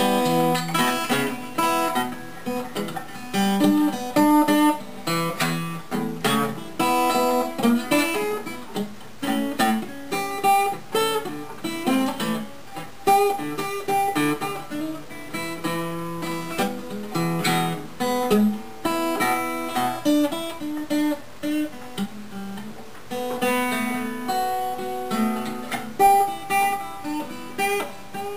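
Gibson L-48 archtop acoustic guitar being noodled on: a loose, unbroken run of picked single notes mixed with strummed chords.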